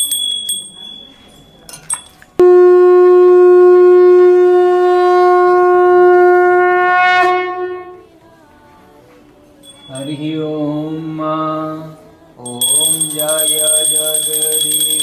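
A Hindu puja opening: a small bell rings briefly, then, about two seconds in, a conch shell (shankha) is blown in one loud, steady note lasting about five seconds. After a pause a voice starts chanting a Hindu prayer, and from about twelve seconds a bell rings continuously under the chant.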